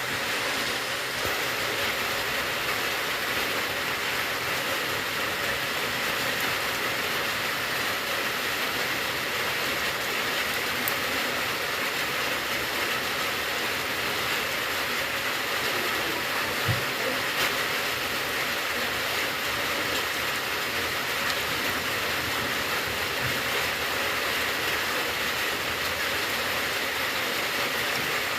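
Steady rain falling, an even, unbroken hiss, with a couple of faint knocks a little past halfway.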